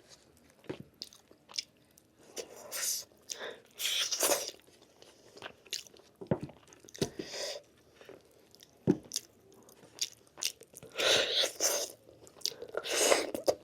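Close-miked eating sounds: chewing and biting into lamb meat, with scattered wet mouth clicks and smacks.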